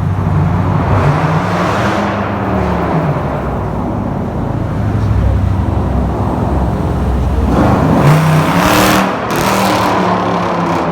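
Loud V8 car exhausts revving in a tunnel, the engine note rising and falling, with a louder burst of rushing noise about eight seconds in.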